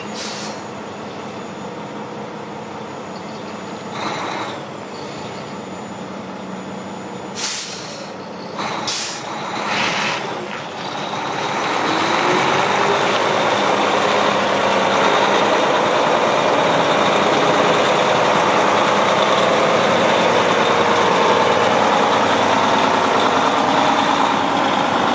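Volvo VNM day cab tractor's diesel engine running at low speed, with short, sharp air-brake hisses, two of them about seven and nine seconds in. About eleven seconds in the engine grows louder, its pitch rising briefly, then runs steadily as the truck comes close.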